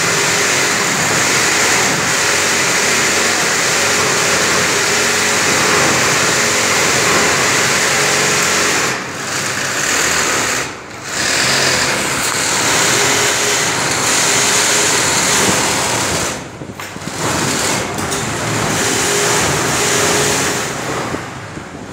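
Industrial sewing machine running fast and steadily as it stitches coiled braids together into a braided rug, stopping briefly a few times.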